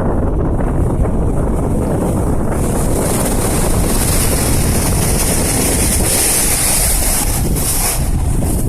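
Sea wind buffeting the microphone with a loud, steady rumble, over the wash of sea waves. A hiss of surf swells a few seconds in and drops away near the end.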